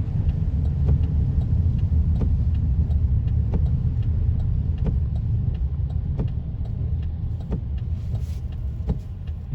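Car driving, heard from inside the cabin: a steady low road and engine rumble. A light tick comes about every two-thirds of a second.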